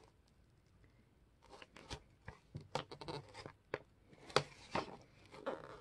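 Dried spine glue of a paperback book being peeled off the signatures, crackling and clicking as it lifts. The irregular sharp clicks start about a second and a half in, after a near-quiet stretch.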